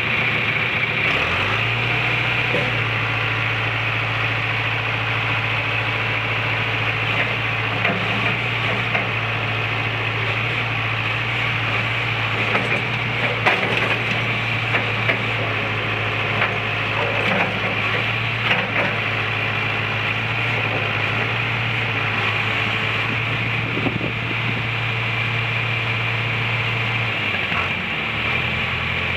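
1984 John Deere 410B backhoe's diesel engine running at a steady speed, with a few light clanks, and a change in engine note near the end.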